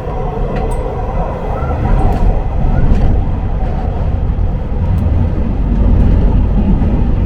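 Inside a moving Taiwan Railways passenger train: a loud, steady low rumble of the carriage running on the rails, swelling a little a couple of times.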